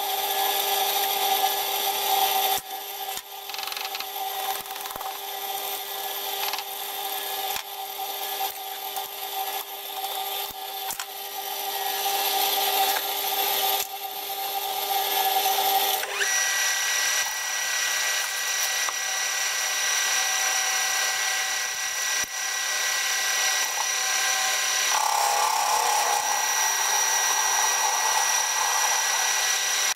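Metal lathe work played back at four times speed: clicks and scraping while a steel block is set in a four-jaw chuck, then the lathe running steadily from about halfway through as the block is machined.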